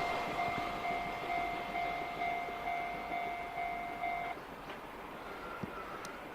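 Japanese level-crossing warning bell ringing in an even, repeating electronic ding about twice a second over the fading rumble of a freight train that has just passed. The bell stops about four seconds in, the sign that the train has cleared the crossing.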